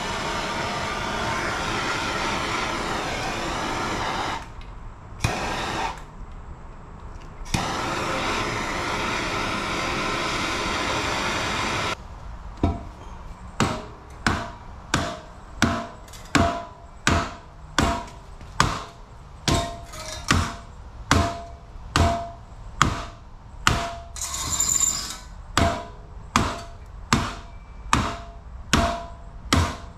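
Handheld torch hissing in two long stretches as it heats the aluminum steering knuckle to expand the strut bore. Then a steady run of hammer blows, about three every two seconds, each with a short metallic ring, driving the strut into the heated knuckle.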